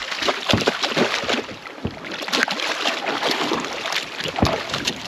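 Water splashing and sloshing, broken by many irregular sharp knocks and clicks.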